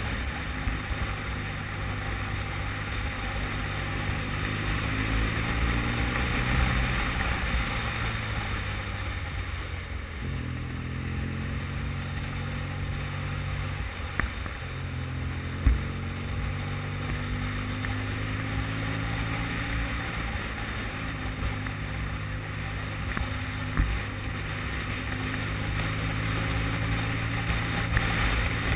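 Motorcycle engine running under way, its pitch sliding down and back up several times with throttle and gear changes, over a steady hiss of wind and tyres on wet tarmac. One short sharp knock about halfway through.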